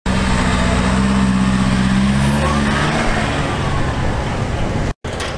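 A car engine running as a car drives slowly past: a low, steady drone that bends slightly in pitch and fades after about three seconds.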